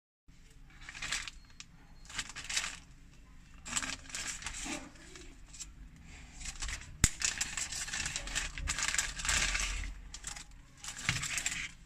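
A clear plastic bag crinkling in bursts as it is handled and opened. There is one sharp click about seven seconds in.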